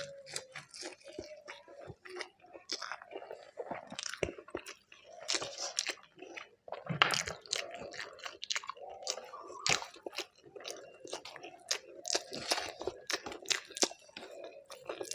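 Close-up chewing of a mouthful of food, with frequent irregular crunches and clicks of the mouth.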